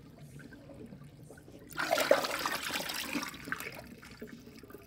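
Water swirling down a stainless steel kitchen sink drain: a faint trickle, then a sudden loud gurgling rush about two seconds in as the water is sucked down the drain, fading over the next two seconds.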